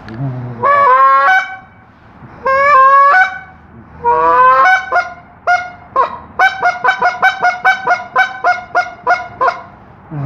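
Winglock Goose Whisperer walnut goose call blown to imitate Canada geese: two drawn-out honks that break sharply in pitch, a longer honk, then a fast run of short clucks, about four to five a second.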